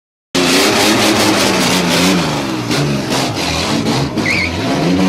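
Car engine revving hard again and again for a burnout, its pitch climbing and dropping, coming in abruptly after a moment of silence. A brief high squeal, typical of spinning tyres, comes in about four seconds in.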